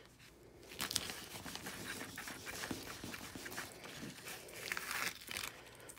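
Vinyl transfer tape crinkling and rustling as it is pressed over a small cut vinyl decal and lifted off the backing. There are soft irregular ticks, and a louder rustle about five seconds in.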